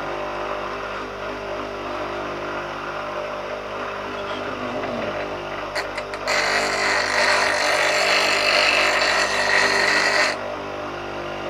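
Bench grinder running with a steady hum. A few clicks about halfway through, then a steel woodturning chisel is held against the spinning wheel for about four seconds, giving a loud grinding hiss. The grinding stops and the motor's hum carries on.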